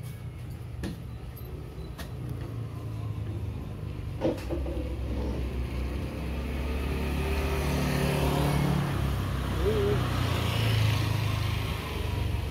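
A motor vehicle passing close by: its engine rumble builds over several seconds, is loudest about two-thirds of the way through, then eases off. A few faint sharp clicks sound in the first seconds.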